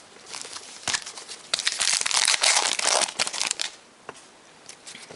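Wrapper of a pack of football trading cards being torn open and crinkled, a dense stretch of crackling from about one and a half to nearly four seconds in, with lighter rustling before and after.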